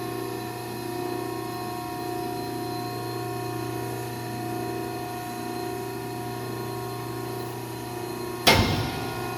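Marathon V6030-HD cardboard baler's hydraulic power unit running steadily under a compaction cycle, a constant electric-motor-and-pump hum. Near the end a single loud bang cuts through.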